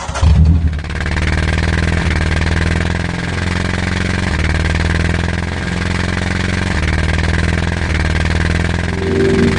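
Vehicle engine running steadily, cutting in suddenly with a louder surge in the first second.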